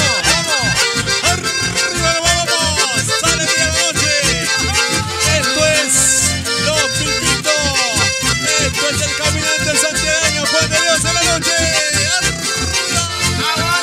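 Live dance-band music led by an accordion over a steady, regular bass beat.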